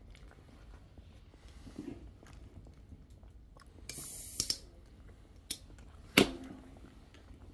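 People chewing and biting cooked shrimp, with faint mouth clicks and smacks. A short hissing rush comes about four seconds in, and a sharp knock, the loudest sound, about six seconds in.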